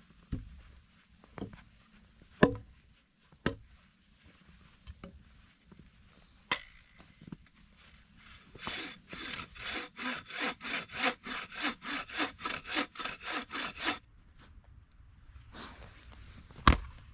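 Hand saw cutting through wood in an even run of quick strokes, about three or four a second, for roughly five seconds, most likely firewood for the wood stove. Before it come several sharp separate knocks, and one loud knock comes near the end.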